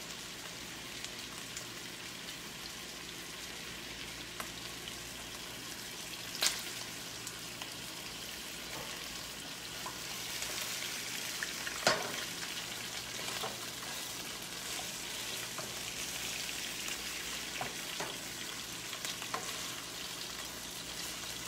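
Boneless chicken thighs searing in butter and olive oil in a skillet: a steady sizzle that grows a little louder about halfway through as they are pushed around with a wooden spatula. Two sharp knocks stand out, one about six seconds in and one about twelve seconds in.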